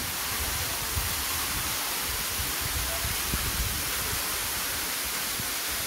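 Waterfall: water falling down a rock face into a pool, a steady rushing hiss.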